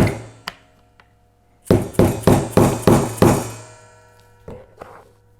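Brass hammer tapping a punch to drive the retaining pin back into a Lancer gas-blowback airsoft magazine. There is one sharp strike, then a quick run of about six strikes about two seconds in, each with a short metallic ring.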